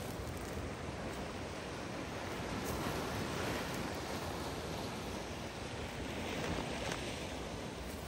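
A steady outdoor rushing noise with no distinct events, swelling a little about three seconds in and again near the end.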